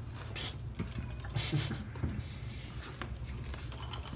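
Dry dog kibble rattling into a stainless-steel bowl about half a second in, then scattered light clicks and crunches as a small dog starts eating from the bowl, over a low steady hum.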